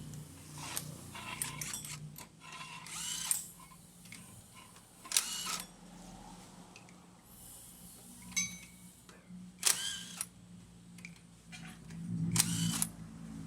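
Mechanic's hand tools working on a car's wheel and suspension: scattered sharp metallic clicks and clinks, several with a short ring, over a low steady hum.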